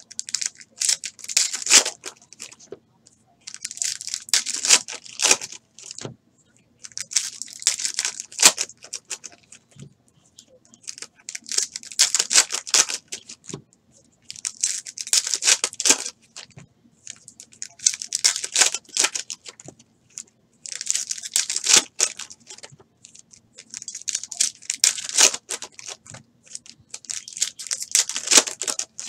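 Foil wrappers of Prizm basketball card packs crinkling and tearing as pack after pack is handled and ripped open, in bursts of rustle every few seconds.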